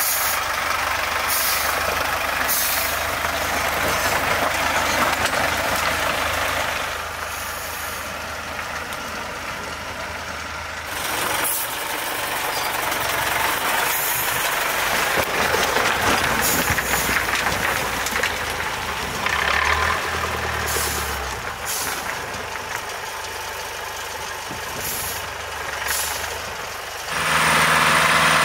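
Heavy off-road trial truck's diesel engine working under load as it crawls up a rocky slope, with tyres grinding over rock and several short, sharp hisses of air. The engine gets louder shortly before the end.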